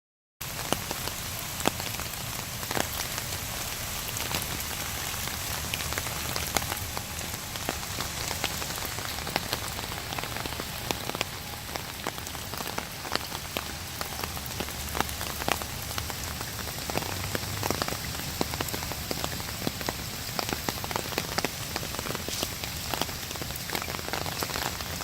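Steady rain with many separate drops pattering close by, over an even hiss. It cuts in abruptly just after the start.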